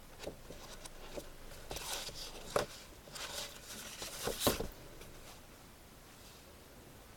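Paper rustling and light knocks as sketchbooks and loose paper sheets are handled and their pages turned. It is busiest in the middle, with two sharper taps a couple of seconds apart, then settles.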